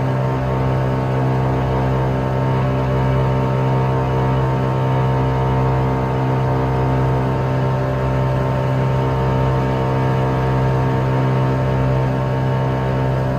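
Wright R-1820 Cyclone nine-cylinder radial engines of a Boeing B-17G Flying Fortress running steadily in flight, a deep, even drone with no change in pitch.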